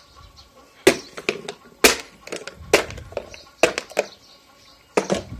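Plastic bottle being stamped and crushed underfoot: a series of sharp crunching cracks, the loudest about once a second, with weaker crackles between them.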